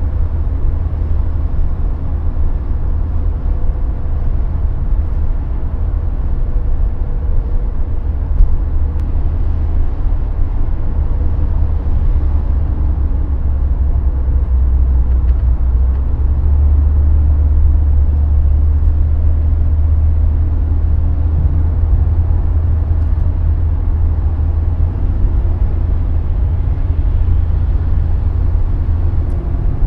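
Inside the cabin of a Mercedes-Benz 200 E (W124) at autobahn speed: the steady low drone of its M102 four-cylinder petrol engine mixed with road and wind noise. A brief thump about eight seconds in.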